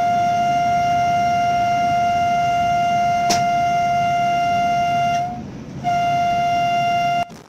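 Train horn sounding from the driver's cab at speed: one long steady blast of about five seconds, a short break, then a second blast of just over a second. A low rumble from the train running on the track sits underneath.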